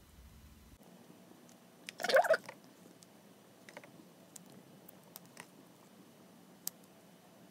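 Faint, scattered small clicks and ticks of handling, with one brief louder sound about two seconds in.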